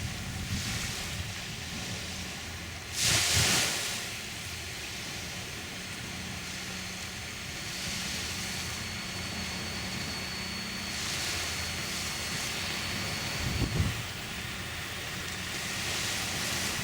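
Wind on the microphone and surf at a beach, with the faint high whine of a Tamiya Hilux High-Lift RC truck's electric motor and gearbox running; a loud gust of rushing noise comes about three seconds in.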